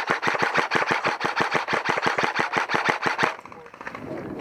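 Airsoft rifle firing a long full-auto burst of rapid, evenly spaced shots as cover fire. It stops about three seconds in, and fainter rapid shots carry on after it.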